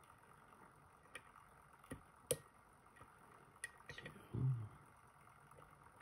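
Light, scattered metal clicks of a hook pick working the pin stack of a JPM Surf Euro cylinder lock held under tension, about five clicks with the loudest a little after two seconds in, as the picker probes for a pin that is stuck. A brief low sound comes about four and a half seconds in.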